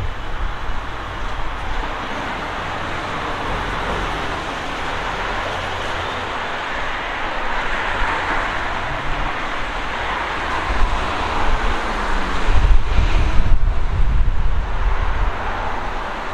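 Steady hiss of city street traffic, with wind buffeting the microphone; the buffeting grows heavier and louder in the last few seconds.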